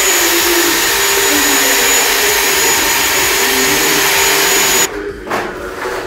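Handheld electric paddle mixer running steadily with a high whine, stirring wall putty in a bucket; it cuts off about five seconds in.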